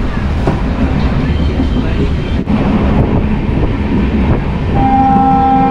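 Steady rumble of a passenger train coach running on the track, heard from inside the coach. Near the end the train's horn starts, a steady blast of several tones held to the end.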